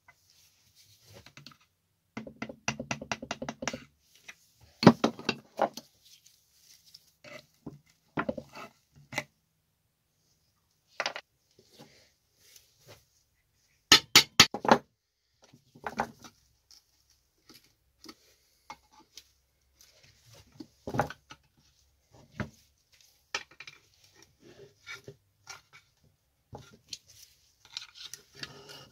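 Hand tools and metal small-engine parts being handled: scattered sharp clicks, clinks and knocks, with a quick run of about a dozen clicks about two seconds in and a loud cluster of clinks about halfway through.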